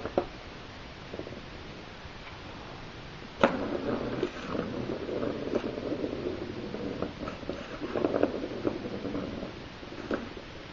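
A cat pawing at a round plastic-ringed cardboard scratcher toy makes a rumbling, scraping sound. It starts suddenly about three and a half seconds in, eases briefly partway through, and stops about a second before the end.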